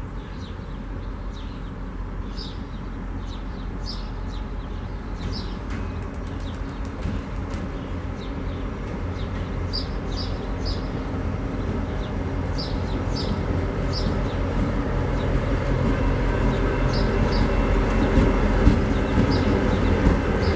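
Norfolk Southern GP38-2 diesel locomotive, its EMD 16-645 two-stroke V16 engine running as the unit approaches on its own, growing steadily louder as it draws near. Birds chirp in short bursts over it.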